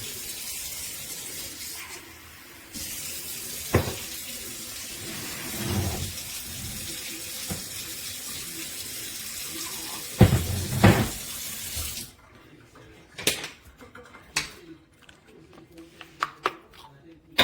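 Water running steadily from a tap, with a few knocks and clunks along the way. The water stops about twelve seconds in, leaving scattered clicks and taps of handling.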